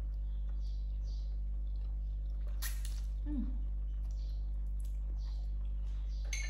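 A person eating noodles: soft chewing and slurping noises, with one sharp click, likely a utensil, about two and a half seconds in and a brief falling vocal sound just after. A steady low hum lies under it all.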